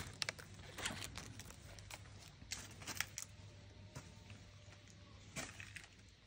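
Faint, scattered rustles and light clicks: plastic grafting bags and sapling leaves being handled, with footsteps along the row, over a faint steady low hum.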